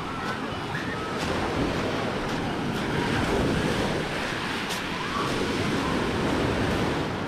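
Small sea waves washing onto a pebble and gravel shore, swelling twice, with wind buffeting the microphone.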